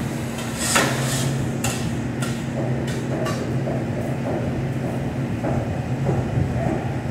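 Steady drone of a commercial kitchen's exhaust hood fan, with about six sharp metal clanks from cookware in the first three and a half seconds.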